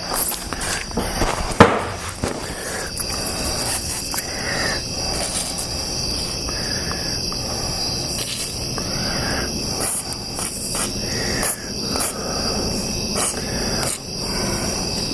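Crickets chirping steadily, with a sharp click about a second and a half in and scattered clicks and rattles from the old sliding glass door lock being worked.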